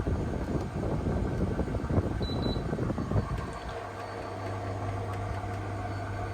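Old Panasonic room air conditioner running: an uneven rumbling rush at first, then about three and a half seconds in it settles into a steady low hum.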